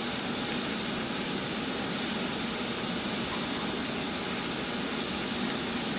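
Steady, even machinery noise of HVAC equipment running while the economizer damper actuator slowly drives open. The actuator motor itself does not stand out.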